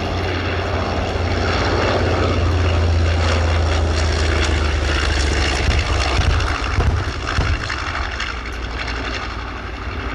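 B-25 Mitchell bombers flying past, their twin radial piston engines and propellers droning. The sound builds to its loudest a few seconds in, then fades as they move away.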